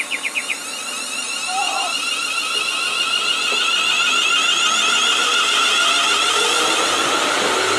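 Class 380 Siemens Desiro electric multiple unit: its door-closing warning, a rapid run of high beeps, ends just after the start. The train then pulls out of the platform with a steady electric whine that grows louder.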